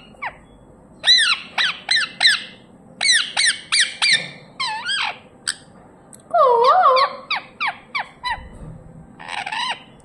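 Rose-ringed (Indian ringneck) parakeet squawking in quick runs of short, sharp calls, several a second. About two-thirds of the way through it gives a lower, wavering call.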